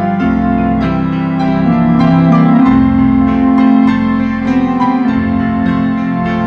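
Organ and piano playing Christmas music together: long held organ notes under struck piano chords.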